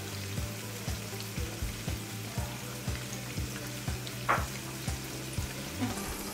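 Battered prawns deep-frying in hot oil over a low-to-medium flame, a steady sizzle and crackle. A soft low thump about twice a second runs underneath.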